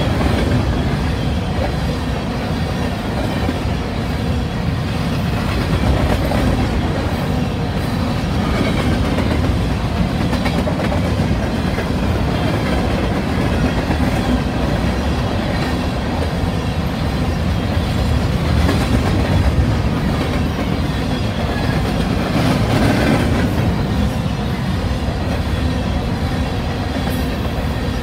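Loaded covered hopper cars of a freight grain train rolling past close by: a steady noise of steel wheels running on the rails.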